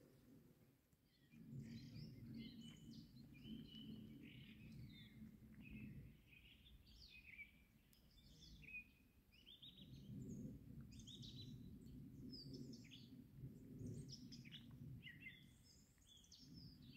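Faint birdsong: many short chirps and twitters from several birds, over a low rumbling background that comes and goes.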